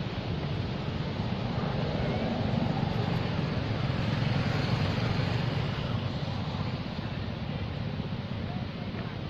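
Steady low outdoor rumble with no distinct events, swelling a couple of seconds in and easing off after about six seconds.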